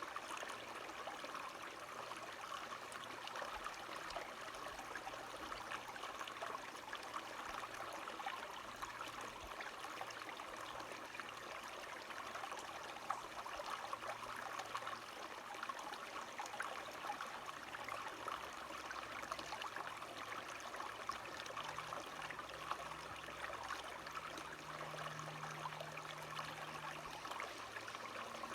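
Steady rushing of a stream's running water. A faint low drone joins in during the last third.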